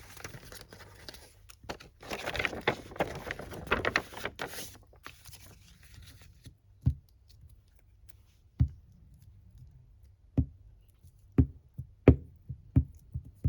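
Paper rustling and being handled for the first few seconds, then a run of about seven separate knocks on the work table, roughly a second apart, as paper pieces are laid and pressed down.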